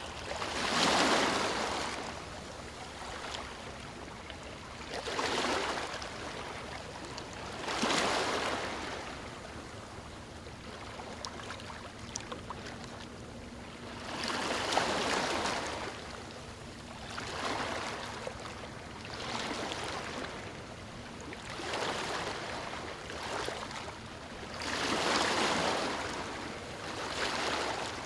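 Small ocean waves breaking and washing up a beach, with a surge of surf every few seconds over a steady hiss of water. The first wave is the loudest.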